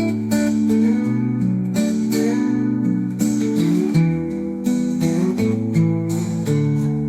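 Country song's instrumental outro: acoustic guitar strumming chords over a bass line, without vocals.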